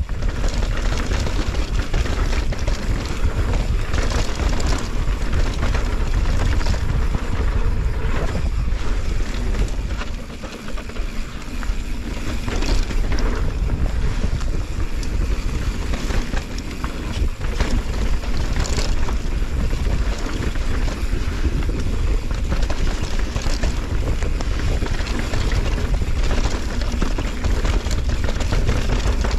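Mountain bike riding fast down a dirt forest trail: wind buffeting the helmet camera's microphone over the steady roll of tyres on dirt, with short rattles and knocks from the bike over bumps. It eases briefly about ten seconds in.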